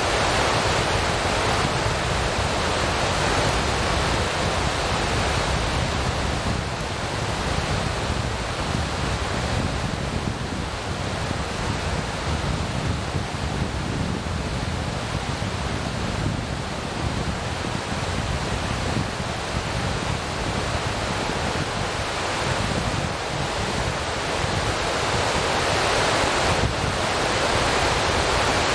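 Steady rushing noise that swells and ebbs slowly, louder at the start and again near the end, with no distinct events in it.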